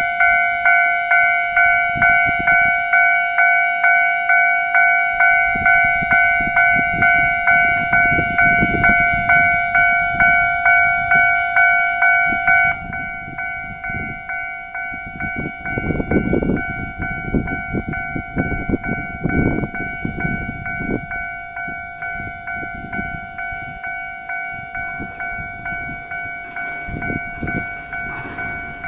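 Japanese level-crossing warning bell ringing in steady repeated strokes, about two a second. About 13 seconds in it drops to a lower volume and keeps ringing while a two-car electric train runs through the crossing with wheel and track rumble.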